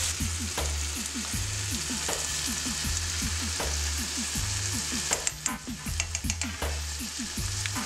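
Boneless chicken chunks sizzling in oil in a frying pan as they brown. A utensil stirs and turns them, with a cluster of sharp clicks against the pan around five to six seconds in.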